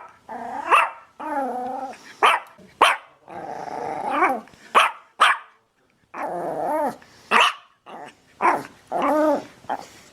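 Dog barking repeatedly: short sharp barks mixed with several longer, drawn-out calls that waver in pitch, with a brief break about halfway.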